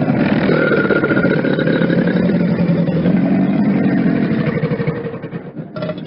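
A loud, rough animal call made of rapid pulses over a few steady pitched bands. It fades somewhat after about five seconds and breaks off just before the end.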